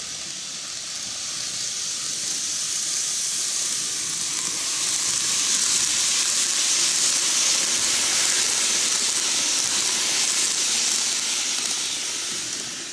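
N gauge model train, a 10-car Odakyu 30000 EXE, running past on curved track: a steady high-pitched hissing rush of wheels on rail and motor. It swells as the train nears, is loudest around the middle, and fades near the end.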